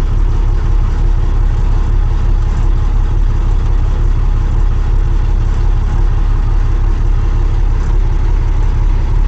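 Diesel truck engine and road noise inside the cab of a moving truck: a steady, loud drone with a deep rumble.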